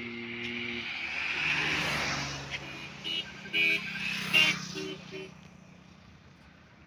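Highway traffic going by: a steady engine hum gives way, about a second in, to a van passing close, its engine and tyre noise swelling and fading over a couple of seconds. A few short sharp sounds follow as motorcycles come along, then the road goes quieter.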